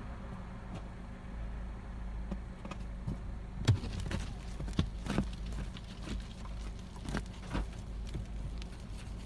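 Idling car engine, heard from inside the cabin. About four seconds in a knock on the windshield, then a run of irregular scrapes and taps as a hand smears snow across the glass to clean it.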